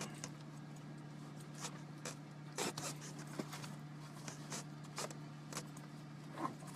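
Rustling, scraping and scattered small clicks of cables and gear being handled, over a steady low electrical hum.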